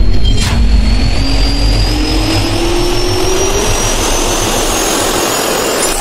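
Jet-engine spool-up sound effect: a loud rushing noise with a whine that slowly rises in pitch, a sharp hit about half a second in, and a louder burst at the very end.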